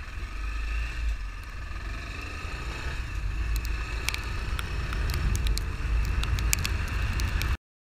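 Honda NX 400 Falcon's single-cylinder engine running as the motorcycle pulls away on a wet road, under a heavy low rumble, with scattered sharp ticks in the middle. The engine has just caught again after stalling in floodwater. The sound cuts off abruptly to silence just before the end.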